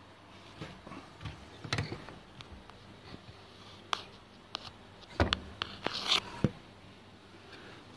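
Scattered light knocks and clicks with some rustling, the handling noise of a phone being moved about by hand.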